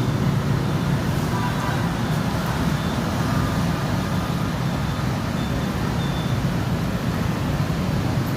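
Steady low background rumble at a constant level, with no distinct events.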